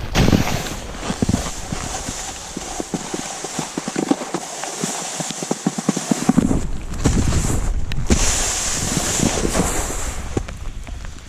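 Snowboard scraping and sliding over wet, slushy snow, with irregular knocks and clatter throughout. A low rumble underneath drops away for a couple of seconds midway.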